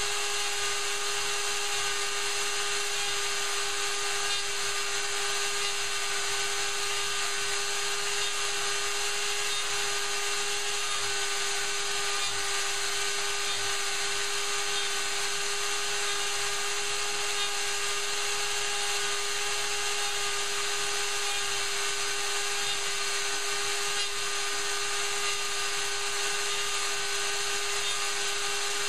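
Bosch 500 router on a small CNC machine running steadily with a high whine as its bit mills a pocket in hardwood.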